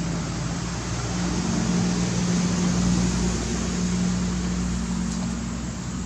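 A steady low mechanical hum, like an idling engine or motor, holding one pitch and growing a little louder about a second in, over a constant hiss.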